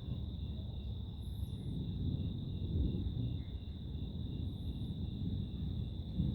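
Night insects: a steady high buzz with crickets chirping about three times a second, over a low, steady rumbling noise.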